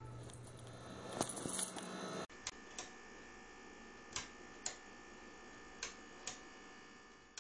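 Faint steady hum and room noise with scattered sharp clicks. A little over two seconds in the sound changes abruptly and the hum drops away, leaving faint room noise broken by about six isolated clicks, unevenly spaced.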